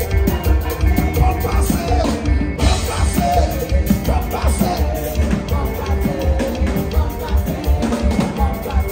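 Live church band playing loud amplified music with a steady, heavy bass beat, drum kit and keyboard, with singers' voices in the mix.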